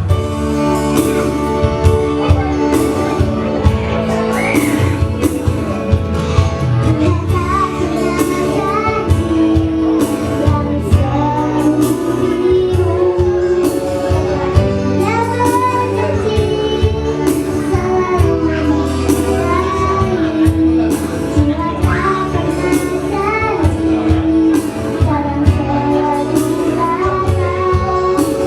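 A woman singing a song over instrumental accompaniment with a steady beat.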